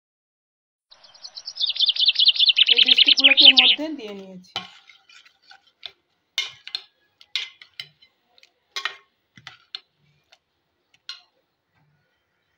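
A burst of rapid high chirping for the first few seconds, then a steel spoon stirring a thick milk mixture in a steel pot, clinking against the side in scattered light knocks.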